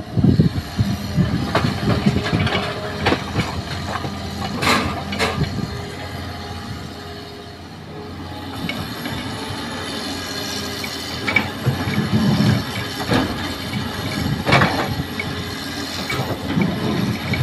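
Hitachi hydraulic excavator working a load cycle: its diesel engine runs steadily under hydraulic load while it swings and digs. Soil and rocks drop into a steel dump truck bed near the start. Several sharp clanks of the bucket and stones are scattered through the rest of the cycle.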